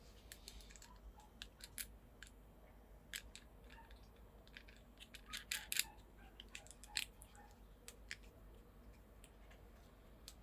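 Irregular small clicks and taps of hardware being handled, loudest in a quick cluster a little past the middle.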